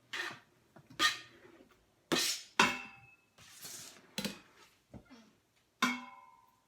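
Raw chicken pieces going into an Instant Pot's stainless steel inner pot, a utensil knocking and clinking against the metal in a series of irregular strokes, a few of them ringing briefly.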